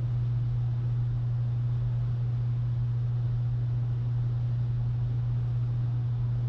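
Steady low hum at one constant pitch, with a faint hiss, unchanging throughout.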